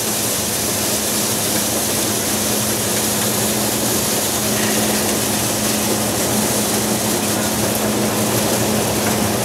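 A 2 HP dal mill running steadily as it splits toor (pigeon peas) into dal: a constant motor hum near 200 Hz under an even rushing noise of the grain passing through the rollers and out of the chute.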